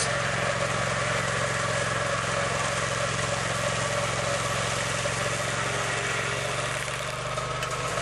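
Timberline 4410 portable sawmill's 30-horsepower Kohler gas engine running steadily under load while its dual 13-inch circular edger blades cut along a log. The engine's even hum sits under a steady rushing saw noise.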